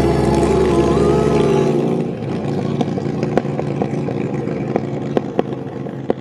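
Motorcycle engine running as the bike pulls away. The sound drops off after about two seconds and keeps fading, with scattered sharp pops.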